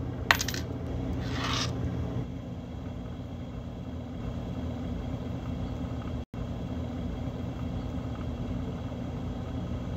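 Steady low background rumble with a constant hum, with a sharp click just after the start and a short hiss about a second in; the sound cuts out for an instant a little past halfway.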